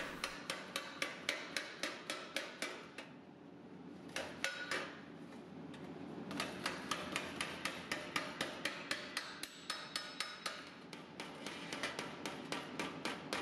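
Body hammer tapping a sheet-steel fender edge held against a round steel bar anvil, smoothing the edge. Quick, light, evenly spaced strikes come about four to five a second. They ease off for a few seconds in the middle with only a couple of taps, then run on steadily again.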